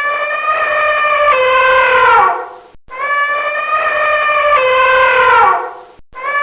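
Loud, high, horn-like animal call about two seconds long, stepping down slightly in pitch partway through and sliding down at its end; the identical call repeats twice.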